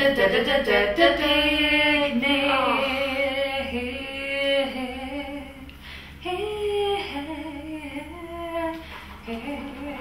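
Women singing a song unaccompanied, with long held notes that slide in pitch.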